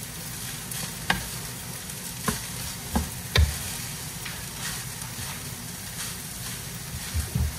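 Nasi goreng (fried rice) sizzling in a frying pan as it is stirred and turned over with a wooden spatula, with several sharp knocks of the spatula against the pan.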